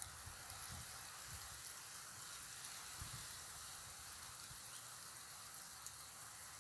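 Faint steady hiss, with a few soft low bumps.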